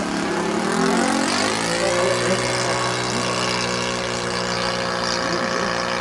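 Engine of a Goldberg Ultimate radio-controlled aerobatic biplane running in flight. Its pitch shifts during the first second or so, then holds steady.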